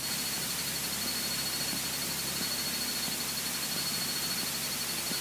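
Steady hiss from a Cessna 152's cockpit intercom and headset audio feed, with a thin constant high whine and a faint low hum beneath it.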